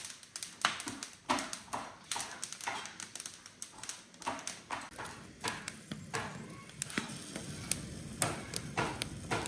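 Irregular light taps and clicks of tomatoes and chili peppers being set and turned on the metal grates of a gas hob, some with a short ring. A low steady hum comes in about halfway through.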